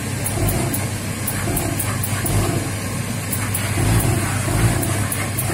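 A stiff brush scrubs a foam-covered shoe in repeated strokes over the steady hum of a Scarpavapor steam shoe-cleaning machine.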